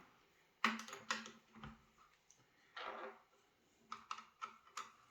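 Light clicks and knocks of a metal tool hanger and nail gun body being handled and adjusted. There are a few sharp separate clicks in the first two seconds, a short scrape about three seconds in, and a quick run of clicks near the end.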